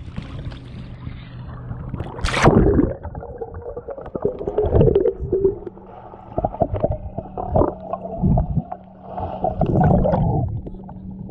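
Water splashing as a camera is dunked under the lake surface about two seconds in. It is followed by muffled underwater sound of water sloshing and knocking against the camera, with a low steady hum.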